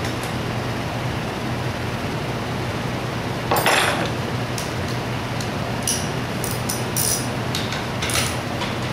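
Metal hand tools clinking and rattling against the parts of a Zenoah G270RC engine on a workbench, in scattered short clatters, the loudest about three and a half seconds in, over a steady low hum.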